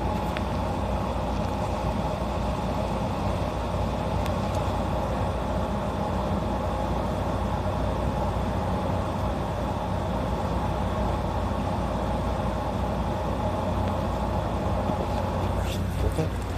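Steady hum and drone of a stationary electric train's onboard equipment, heard inside the carriage as it waits at the platform. There are a few faint clicks near the end.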